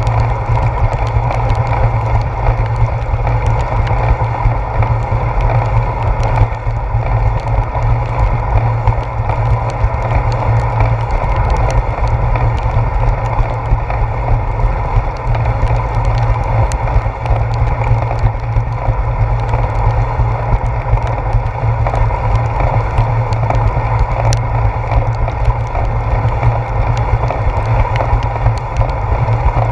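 Steady rumble of wind and tyre noise from a bicycle riding along a wet concrete path, picked up by a handlebar-mounted GoPro.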